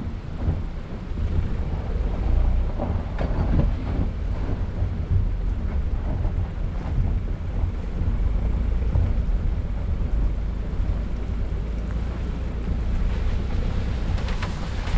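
Car driving slowly over snow and slush: a steady low rumble of engine and tyres, with wind buffeting the microphone outside the car. Short crackles from the tyres come near the end as the car rolls onto the wet, slushy lane.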